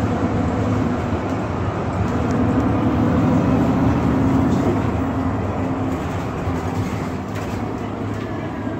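A 2019 Nova Bus LFS CNG city bus under way, heard from inside: a steady hum of the natural-gas engine mixed with road noise. It grows louder from about two seconds in, as if pulling away under power, then eases off toward the end.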